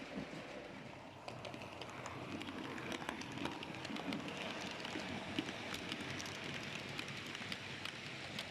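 H0-scale model train running on the track, a steady whirring rattle with many small irregular clicks that picks up about a second in.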